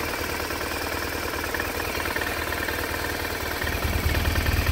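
BMW R1200R's air/oil-cooled flat-twin boxer engine idling steadily, growing louder near the end.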